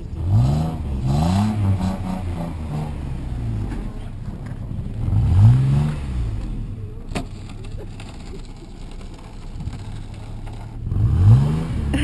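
Toyota FJ Cruiser's 4.0-litre V6 revving up and dropping back in four bursts, two close together at the start, one about five seconds in and one near the end, as the snowed-in SUV works its way out of a parking spot in deep snow.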